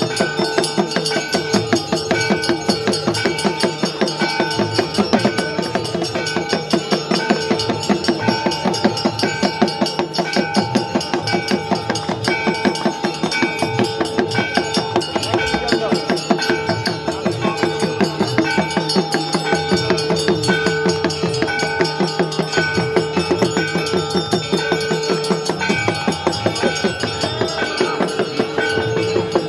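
Hindu temple bells ringing continuously with rapid, steady strikes and drum beats, the sound of the evening aarti ritual.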